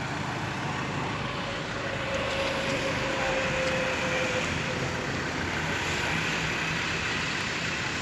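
Bus engine and road traffic noise, steady, swelling a little after about two seconds and easing off again.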